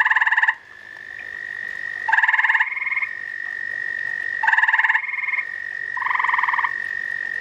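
Gray tree frogs calling: several short, pulsed trills about half a second long, coming every one to two seconds, some overlapping as more than one male answers another. A steady high tone runs beneath the trills.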